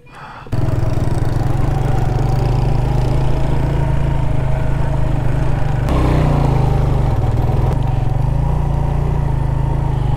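Motorcycle engine running steadily under way, heard from the rider's own bike, over a steady hiss. It starts abruptly about half a second in, and its pitch changes abruptly about six seconds in.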